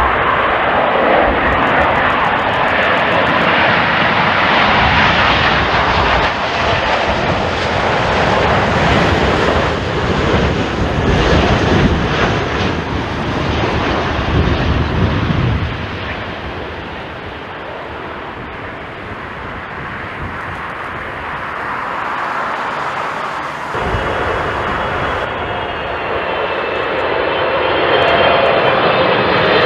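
Jet airliner engine noise mixed with gusty wind buffeting the microphone. About 24 seconds in the sound changes abruptly to a jet engine whine with several steady pitched tones, which grows louder near the end.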